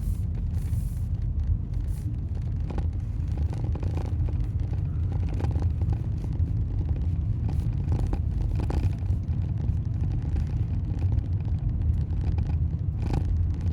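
Vehicle driving, a steady low rumble from engine and road, with scattered sharp clicks at irregular intervals, the clicking noise the title speaks of.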